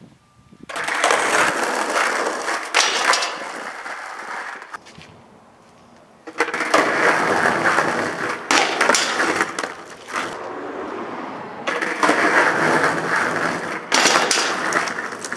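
Skateboard wheels rolling over rough concrete in three runs, with sharp clacks and knocks of the board as the skater tries a boardslide on a low metal flat bar.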